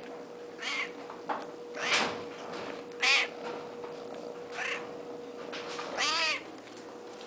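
Kittens meowing, about half a dozen separate meows. The loudest comes about three seconds in, and a longer, wavering meow from the black-and-white kitten close up follows near the end.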